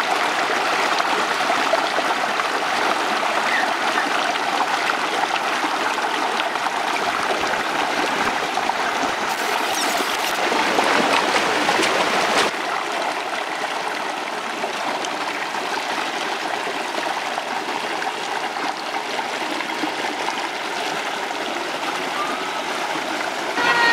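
Shallow rocky stream running over stones, a steady rush of water that drops a little in loudness about halfway through.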